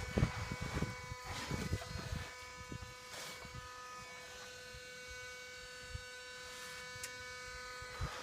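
Steady electrical hum from under a shut-off 2016 Ford F-250 Super Duty 6.2 L V8, with scuffing steps during the first few seconds. The owner cannot place the hum and guesses it may be the evaporative purge system running after shutdown.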